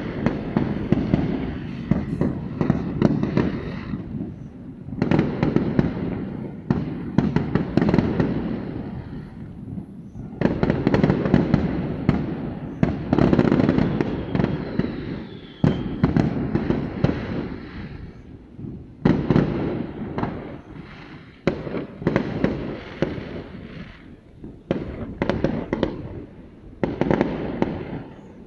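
A fireworks display: dense volleys of bangs and crackling, coming in waves with short lulls every several seconds.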